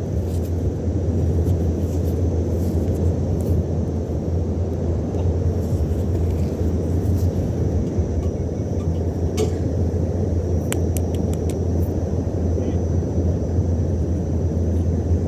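Steady low wind noise buffeting the phone's microphone, with a few faint clicks about nine to eleven seconds in.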